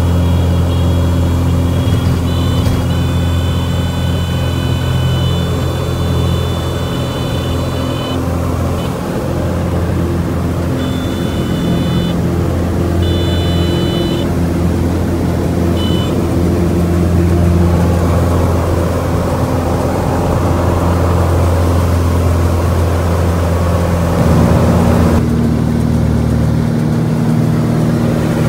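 Light aircraft's piston engine and propeller droning steadily, heard from inside the cabin. A high steady tone comes and goes during the first half. The engine note shifts about 25 seconds in.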